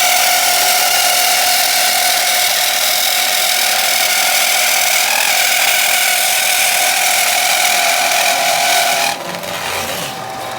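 Power saw cutting through a workpiece, with a steady high motor and blade whine over the cutting noise. About nine seconds in, the cutting stops and the level drops, while the saw keeps spinning more quietly.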